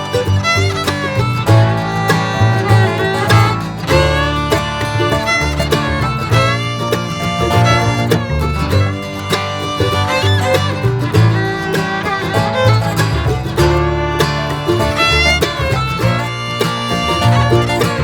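Background music with fiddle and guitar in a bluegrass or country style, with a steady bass pulse.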